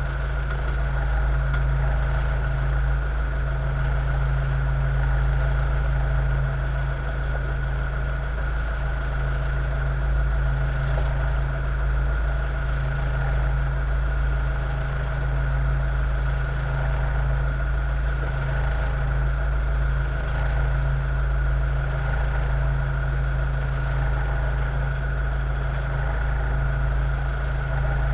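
The boat's outboard engines idling steadily, a constant low hum.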